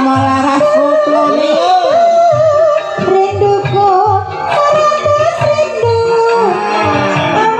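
Dangdut music: a singing melody over a steady, repeating hand-drum beat.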